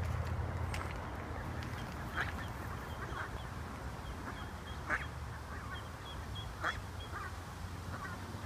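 Mallard ducks quacking: about five short, single quacks spaced a second or two apart, over a low rumble that fades out in the first couple of seconds.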